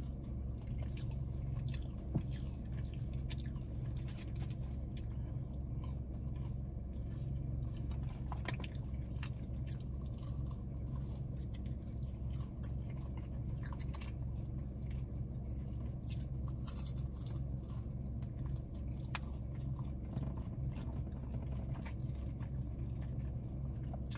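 Chewing and biting into a fried chicken wing, with many scattered sharp mouth clicks, over a steady low hum.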